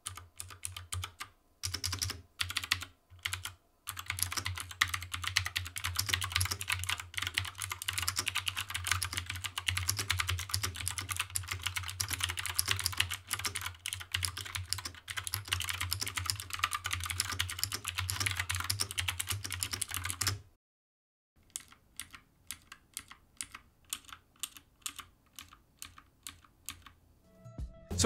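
Lofree Dot mechanical keyboard with clicky Gateron Blue switches being typed on fast: a dense stream of sharp key clicks. After a short silent cut about twenty seconds in, slower, separate key presses.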